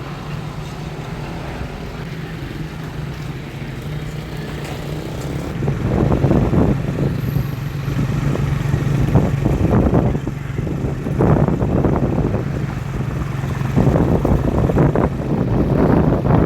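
Motorbike engine running steadily while riding, with gusts of wind buffeting the microphone in irregular rushes from about six seconds in.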